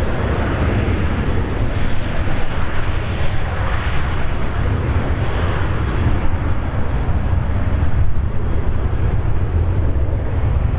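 A Boeing 737-700's CFM56-7B turbofan engines at takeoff thrust during the takeoff roll. The jet noise is loud and steady, with a deep rumble underneath, and its higher hiss eases a little in the second half as the aircraft rolls away.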